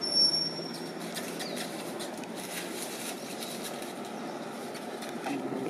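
Dry leaves crackling and rustling under a macaque's steps, over a steady low background rumble. A brief high whistle comes right at the start.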